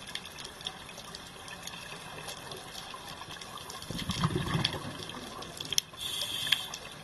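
Underwater ambience through a camera housing: a steady crackle of small clicks, with a burst of low bubbling about four seconds in and a short hiss near the end.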